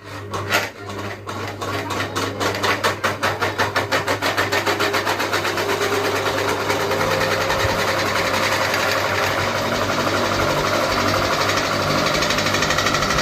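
Ceiling fan speeding up: a rhythmic clacking that comes faster and faster until it merges into a steady rattle, over a steady low motor hum.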